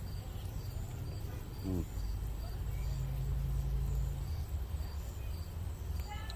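Crickets chirping in a steady rhythm, about two chirps a second, over a low rumble with a steady hum that swells about two seconds in and fades after four seconds.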